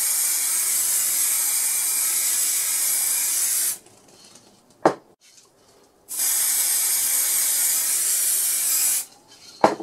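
Aerosol can of matte varnish spraying in two long hisses of about three to four seconds each, with a pause between them. A short click falls in the pause, and another near the end.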